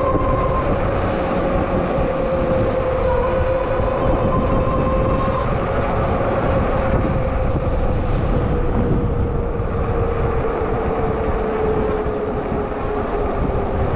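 Rize Blade 2 e-bike riding along: steady wind and road noise with a whine from the bike that slowly drops in pitch.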